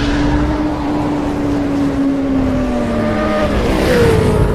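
Sound effect of a motorcycle engine revving. The engine note sinks slowly, then rises sharply near the end and eases off.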